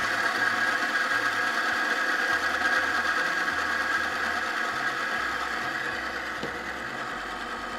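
ASTM G77 pin-on-ring wear tester running, its steel pin rubbing on the spinning ring under a drip of White Lightning Clean Ride chain lube. It makes a steady friction noise that eases a little toward the end. The friction is audible because the thin, solvent-heavy lube leaves little lubricant between the metal surfaces.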